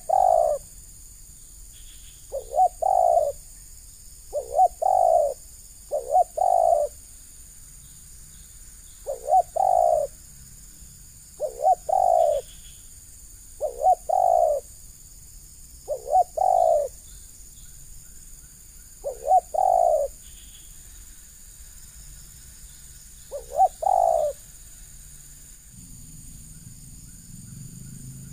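Spotted dove (terkukur) cooing: a short note followed by a longer rolling coo, repeated about every two seconds, some ten or eleven times, with a longer gap before the last call.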